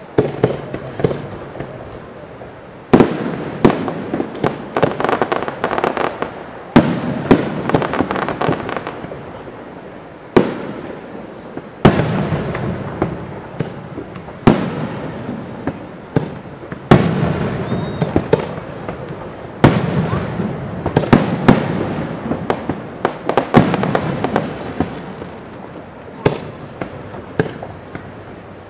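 Aerial firework shells bursting overhead: a long run of sharp bangs, some spaced a second or two apart and some packed in rapid clusters, each trailing off in a rolling echo.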